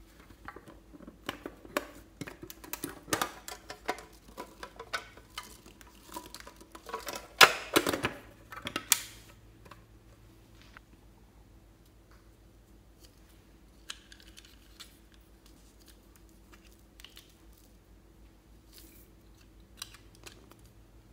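Hands handling a metal tin box: a string of clicks, taps and knocks, loudest about halfway through, then only occasional faint ticks.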